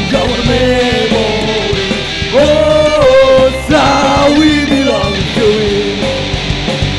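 Live band music: a man sings loudly over guitar and band accompaniment, holding a long note about two and a half seconds in.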